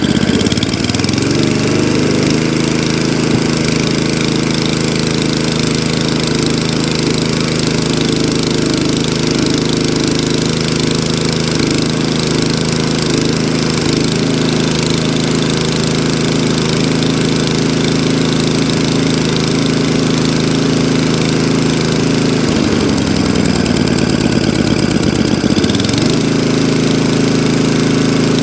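Tecumseh engine of an Atco Balmoral 20S cylinder mower revving up to full throttle and running steadily while its carburettor screw is adjusted to cure a slight hunting, which the owner thinks needs a leaner mixture. About two-thirds of the way through, the engine speed sags and wavers for a few seconds, then picks back up.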